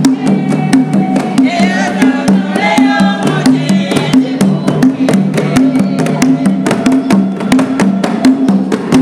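Hand drums beating a fast, steady rhythm under a choir singing: African church music.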